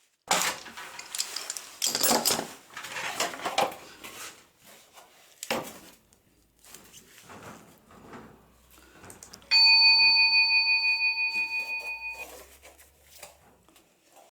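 Metal clattering and scraping, then one struck metallic ring, bell-like, that sounds out with a slight wobble for about two and a half seconds and cuts off abruptly.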